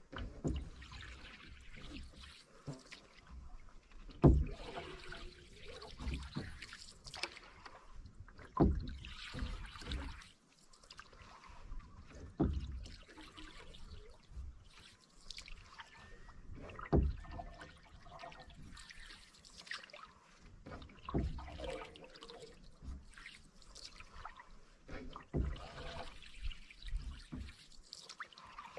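Canoe paddle strokes in calm water, about one every four seconds. Each stroke brings a low knock and a splash, with water trickling and dripping off the blade between strokes.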